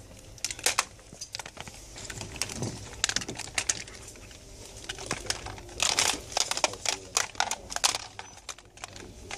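Plastic video game controllers clacking and rattling against one another and a wire display rack as they are handled: a string of irregular clicks and knocks, busiest about six to eight seconds in.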